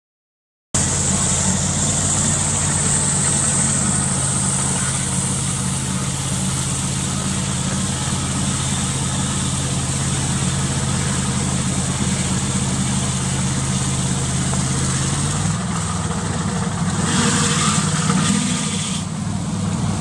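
Engine of an antique motorized ice saw running at a steady idle, starting suddenly just under a second in. About three-quarters of the way through, the engine note shifts and wavers, with a brief hiss on top.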